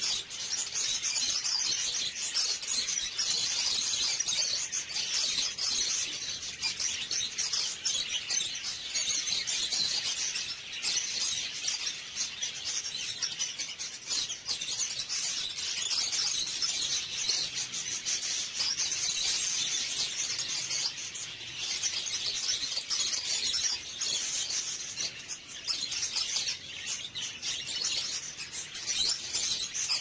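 A flock of caged budgerigars chattering, with many overlapping high chirps and warbles running on without a break.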